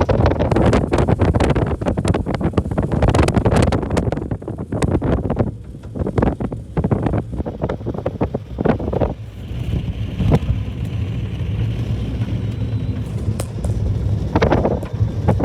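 Wind buffeting the microphone: a loud, steady low rumble broken by irregular crackling gusts, easing briefly about a third of the way in.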